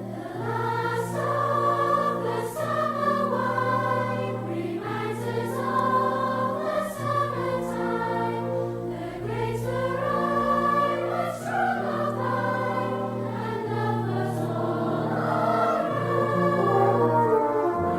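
Choral music: voices singing in harmony over a sustained low note.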